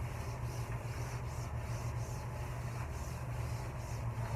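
Sanitizer wipe rubbed back and forth over a waterproof massage-table sheet: a quick repeated swishing, about two to three strokes a second, over a steady low hum.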